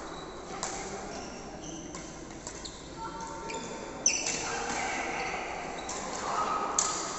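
Badminton rally: rackets striking the shuttlecock, with two sharp hits about four seconds in and near the end, and short high squeaks of court shoes on the sports floor between them.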